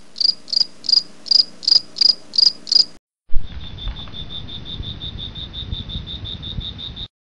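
Night crickets chirping, in two stretches. First come about three sharp, high chirps a second; after a short break, a faster, steady chirping over a low rumble follows, starting with a brief thump and cutting off suddenly.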